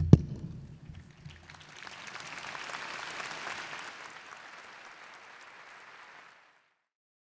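A loud thump on the lectern microphone as the homilist's book is lifted, then a large crowd of thousands applauding, swelling and fading away before it stops suddenly near the end.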